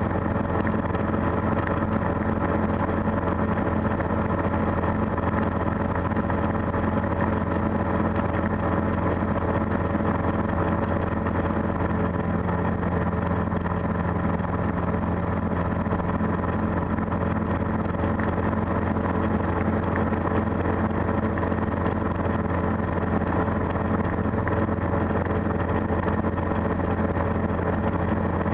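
Calidus gyroplane's engine running steadily, throttled back, heard from inside the enclosed cockpit as an even drone with a low hum and several steady tones above it, unchanging throughout.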